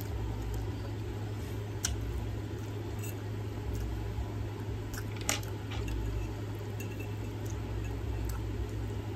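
Close-up eating sounds: wet chewing and mouth sounds of someone eating fried chicken and rice, with a few sharp clicks. A steady low hum runs underneath.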